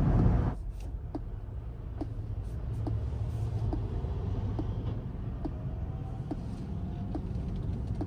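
Cabin noise inside a Rivian R1T electric pickup at highway speed: a steady low road and tyre rumble, with light ticks recurring about once or twice a second.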